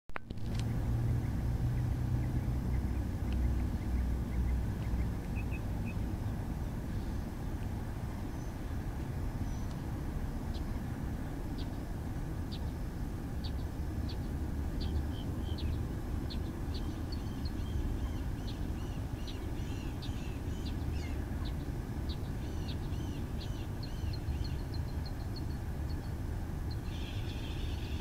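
Lakeside outdoor ambience: a steady low rumble with small birds chirping and peeping irregularly from about ten seconds in, and a louder bird call starting near the end.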